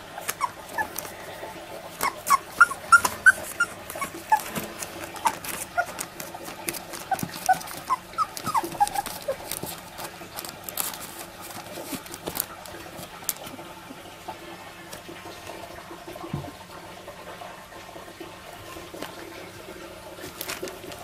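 Miniature labradoodle puppies about three weeks old squeaking and whimpering in short, high-pitched cries, thickest in the first ten seconds and sparser after, among scattered clicks and rustles from the newspaper bedding.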